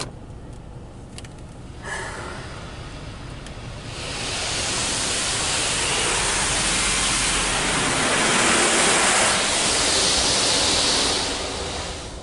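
Belanger Kondor KL2 car wash spraying its spot-free rinse water over the car, heard from inside the cabin. A steady rushing hiss of water on the glass and body comes on about four seconds in, is loudest a few seconds later and dies away near the end.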